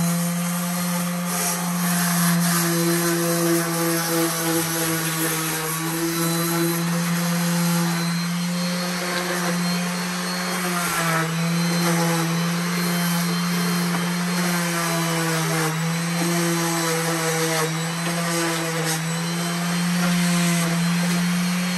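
Electric sander with 60-grit sandpaper running against a concrete fountain: a steady motor hum whose pitch dips slightly now and then as it is pressed against the surface, over a gritty scraping hiss of the abrasive on concrete.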